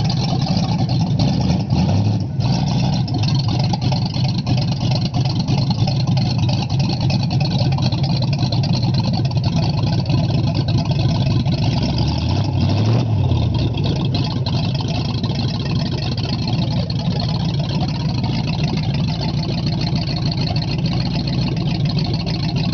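A 1969 Ford Mustang Boss 429's 429 V8 idling steadily, with two brief throttle blips, about two seconds in and around thirteen seconds.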